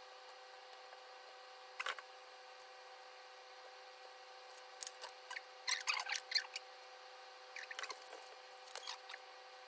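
Faint scattered clicks and light crinkling of food delivery packaging and containers being handled and opened, in a cluster about five to six and a half seconds in, over a faint steady hum.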